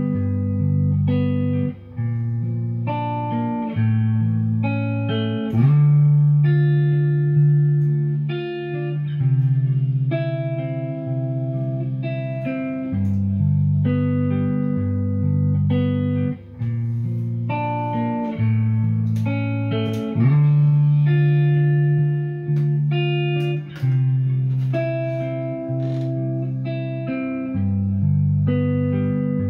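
Electric guitar played through an amplifier and looped live: a repeating phrase of held low notes, with picked higher notes layered on top.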